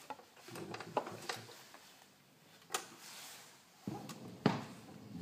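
A vinyl LP being handled and set down on a turntable's platter: a few light knocks and clicks with soft rubbing between them, the loudest knock about four and a half seconds in.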